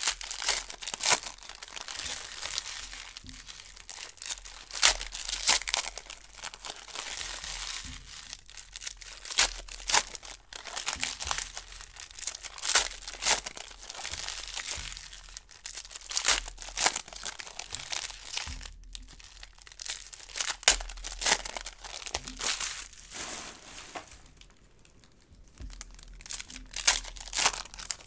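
Foil baseball card pack wrappers crinkling and tearing as packs are ripped open and crumpled by hand, in irregular bursts of crackling with a short lull about three-quarters of the way through.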